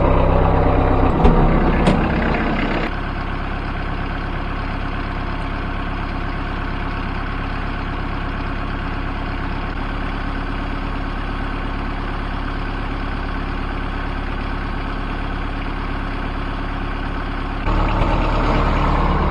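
Cab tractor's engine running steadily, with a couple of clicks in the first two seconds; it is louder at the start and again near the end.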